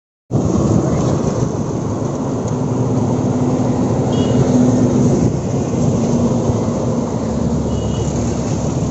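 Wind buffeting a phone microphone outdoors: a loud, steady low rumble that cuts in suddenly just after the start, with a faint steady hum through the middle and two brief high chirps.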